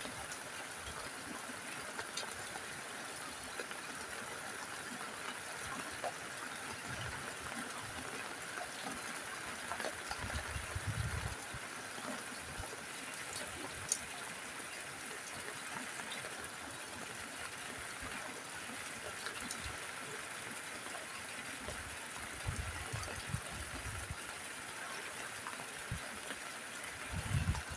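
Rain falling steadily on a rooftop: an even hiss with scattered drops ticking. Brief low rumbles come and go a few times, about a third of the way in and again later.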